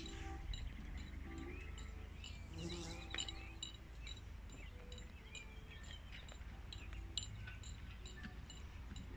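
Faint outdoor ambience: scattered short, high bird chirps over a low rumble of wind on the microphone.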